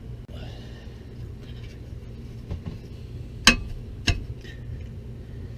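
Two sharp metal clinks a little over half a second apart, past the middle, with faint handling noise over a steady low hum: parts and bolts being handled while a damper plate is fitted to the back of a diesel engine's flywheel.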